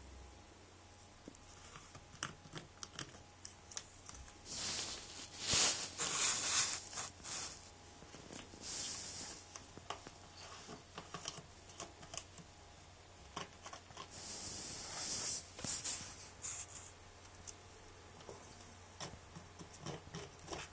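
A cat pawing and nosing at a stack of paper comic books: scattered small taps and scrapes, with two longer bouts of paper rustling, about five seconds in and again about fifteen seconds in.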